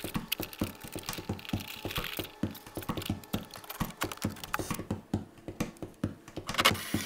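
A quick, irregular run of light clicks and taps, several a second.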